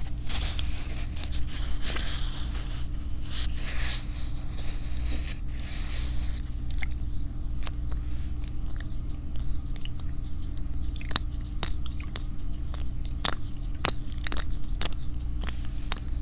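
Close-up ASMR trigger sounds right at a binaural microphone: breathy rustling swells for the first few seconds, then scattered crisp clicks and crackles, over a steady low hum.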